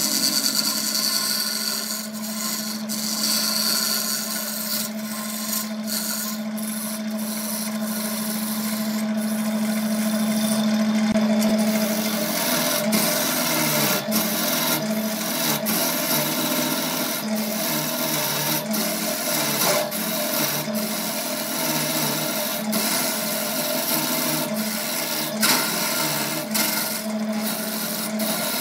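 Wood lathe running with a steady motor hum while a hand-held turning gouge cuts the spinning wood blank, a continuous scraping, shaving sound of wood being peeled away. About twelve seconds in, the steady hum gives way to a wavering tone.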